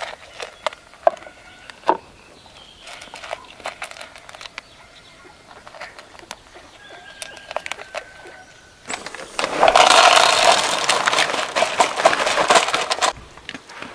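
Dry kibble poured from a bag into a plastic bowl: a loud rattling rush lasting about four seconds, starting about nine seconds in. Before it, scattered light clicks of bowls and kibble, with faint chicken clucks.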